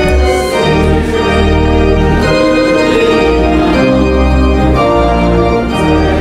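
Organ playing sustained chords over a held bass, the chords changing every second or so.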